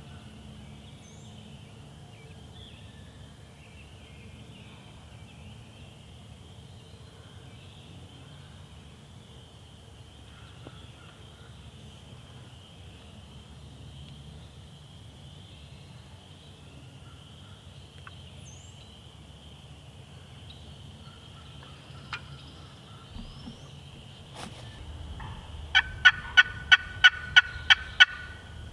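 A series of about eight loud, evenly spaced wild turkey yelps, roughly three a second, near the end. Underneath is a faint steady high-pitched background hum, with a couple of faint clicks before the yelps.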